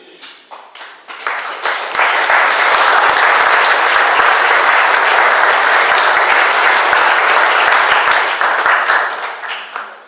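Audience applauding: scattered claps build within the first two seconds into full, steady applause, which thins out and fades near the end.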